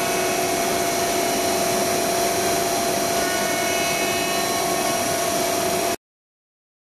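Maka PE70 CNC router's machinery running: a steady whirring hiss with a constant hum, which cuts off suddenly about six seconds in.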